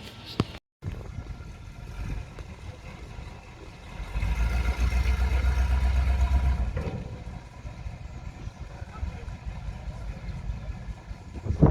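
ZIL truck engine running on the move, a steady low drone that grows louder from about four seconds in to about seven seconds in, then settles back.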